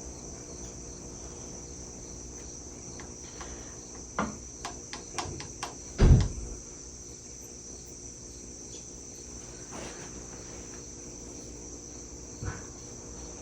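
Scattered metallic clicks and knocks of hand tools and engine parts being handled while the water pump cover comes off a Yamaha YZ125 two-stroke engine, with one louder thump about six seconds in. A steady, high, thin tone runs underneath.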